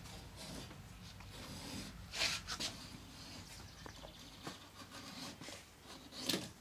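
A knife slicing through sheet vinyl flooring as its overhanging edge is trimmed along a wooden frame, with short rasping cuts about two seconds in and again near the end.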